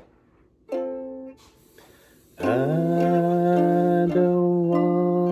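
A ukulele strums a single chord about a second in and lets it ring. From about halfway through, a man's voice holds one long sung note, scooping up into it, over light ukulele strums.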